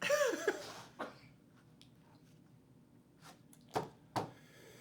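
A man's short wordless vocal sound, like an 'mmm' or grunt, then a few sharp clicks and taps and a soft breathy hiss near the end.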